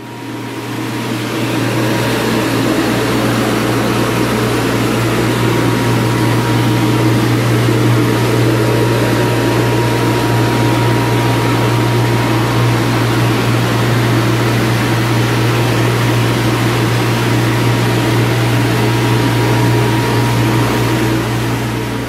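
Ruwac FA2000 dust collector's electric motor and centrifugal blower running steadily: a loud, even rush of air over a low hum, with a faint thin whine above it.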